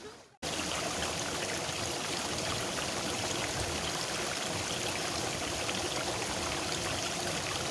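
Steady rushing of water flowing in a small rice-field irrigation ditch, starting abruptly just under half a second in.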